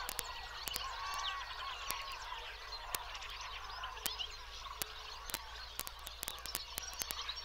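Dense chorus of many small birds chirping and twittering together, with scattered sharp clicks and a low steady hum underneath.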